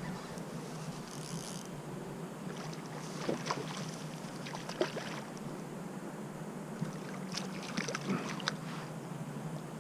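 Steady running water of a shallow stream, with two clusters of short clicks and knocks, one about three to five seconds in and one near the end.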